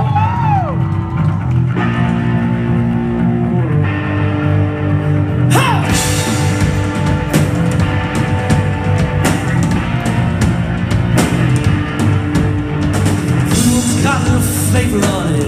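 Live rock band playing amplified electric guitar, electric bass and drum kit. Held guitar and bass notes open it, and the drums and cymbals come in hard about five and a half seconds in, then keep a steady beat.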